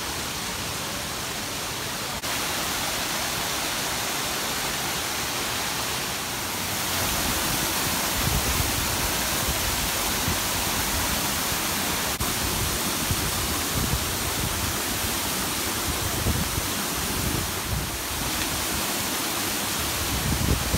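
A fast-flowing mountain waterfall, a loud steady rush of falling water, with deeper rumbling in it from about seven seconds in.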